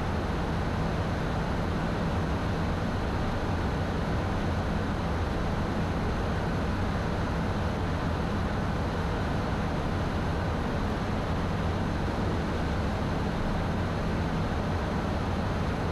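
Steady cockpit noise of a Beechcraft Premier I business jet in flight: a constant rush of airflow over a low, even hum from its twin turbofan engines, as the descent begins.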